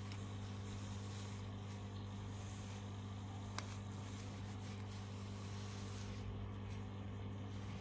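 Steady low electric buzz of an aquarium pump, with a single faint click about three and a half seconds in.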